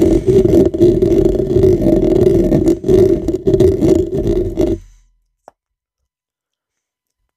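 Fingernails scratching and rubbing directly on a microphone's grille, close and loud, in a dense run of scratches. It stops suddenly about five seconds in.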